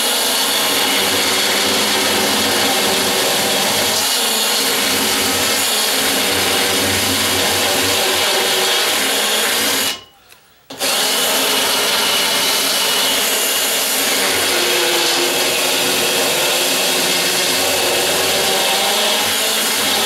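Ryobi cordless drill spinning a rasp bit in the deadbolt hole of a security screen door frame, grinding away the hole's bottom edge where the bolt rubs. It runs steadily for about ten seconds, stops briefly, then runs again for about ten seconds.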